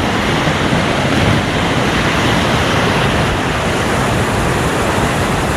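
Small waterfall rushing steadily, a loud, even roar of falling water close by.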